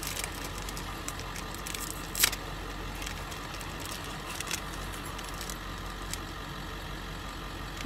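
Plastic wrapper of a dog treat crinkling as it is peeled open by hand, with scattered crackles and one sharp crackle about two seconds in, over a steady low hum.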